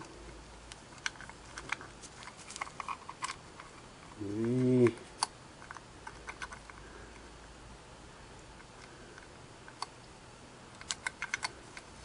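Light clicks and taps from small parts being fiddled with inside a Singer 401A sewing machine, as a lifter's finger is worked into the slot of the cam follower. The clicks are bunched in the first few seconds and again near the end, with a short murmured vocal sound about four seconds in.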